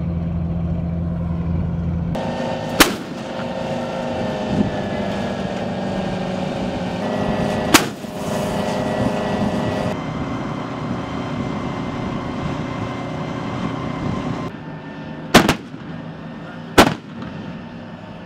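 M109 Paladin self-propelled howitzers: a steady engine rumble runs under four sharp gun blasts, one about three seconds in, one about eight seconds in, and two close together near the end.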